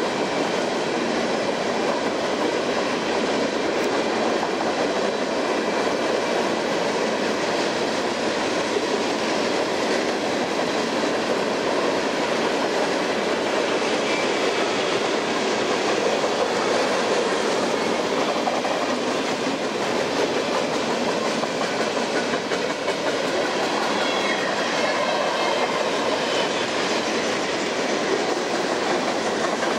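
Empty covered hopper cars of a long freight train rolling past at speed: a steady noise of steel wheels on rail, with a faint high ringing in the later part.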